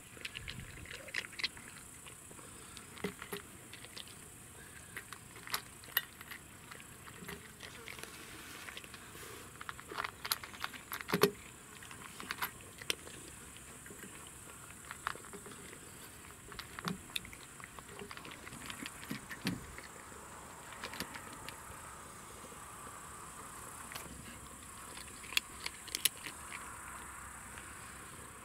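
Cat crunching dry kibble from a metal bowl, with irregular crisp clicks and crunches as pieces are bitten and knock against the metal.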